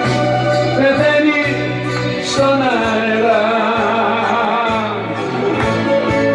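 A man singing into a handheld microphone over amplified backing music, with a steady bass line under the melody.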